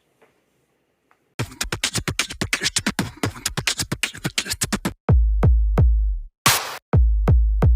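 Electronic music with a drum-machine beat: after about a second and a half of silence, fast rapid-fire percussion hits come in, then deep, booming bass drum hits take over about five seconds in.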